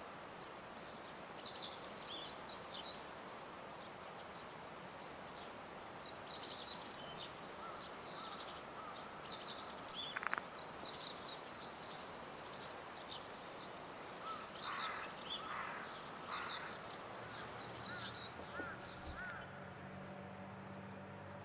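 Outdoor ambience: a steady background rush with small birds calling in short, high, chirpy phrases every few seconds. A faint low hum joins near the end.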